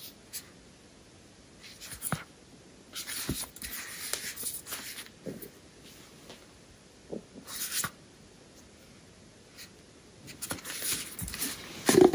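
A cardboard perfume box being handled: short bursts of scratchy rubbing and sliding as it is turned in the hands, and, near the end, the inner box sliding out of its outer sleeve with a light knock.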